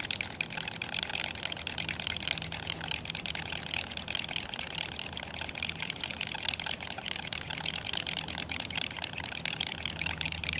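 Wooden hand drill spindle twirled between the palms and grinding in a wooden fireboard: continuous rapid scratchy friction, the sound of working up heat for a friction-fire ember.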